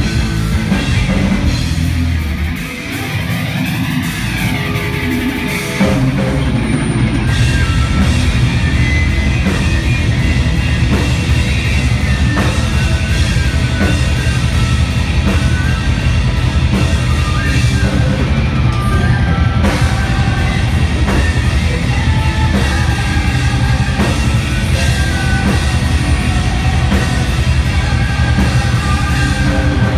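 Folk-metal band playing live: distorted electric guitars, bass and a drum kit, with a small folk pipe carrying a high melody. A thinner, quieter passage with a gliding sound gives way about six seconds in to the full band playing hard.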